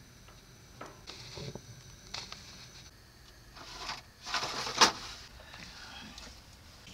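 Light kitchen handling sounds during food preparation at a camping gas stove: a few scattered clicks and knocks, with a short rustle and a sharp click about four and a half seconds in.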